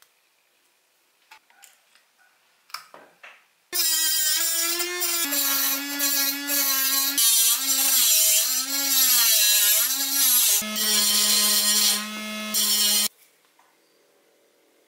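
Small table-mounted electric saw cutting a PVC pipe: a loud motor whine with a rasping cut, its pitch sagging and wobbling as the blade bites into the plastic, for about nine seconds before it stops suddenly. Before it starts, a few light clicks of small metal parts being handled.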